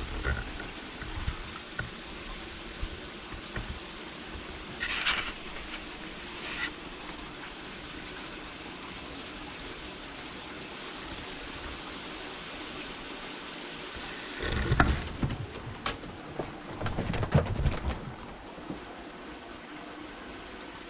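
A kitten scrambling on cage play equipment over a steady background hiss: a couple of brief scuffles about five seconds in, then a louder run of bumps and scratching in the second half as it goes through a plastic pipe and climbs a carpet-wrapped post.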